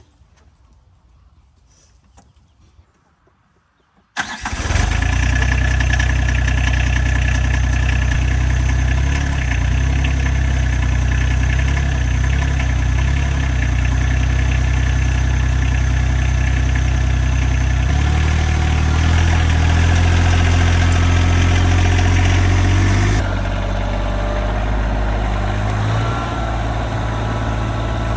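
RK25 compact tractor engine starting about four seconds in and then running steadily, its note shifting twice later on.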